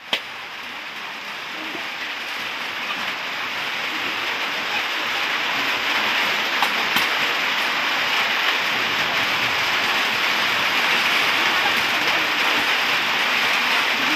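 Steady hiss of running water, growing a little louder over the first few seconds and then holding even, with a few faint clicks about halfway through.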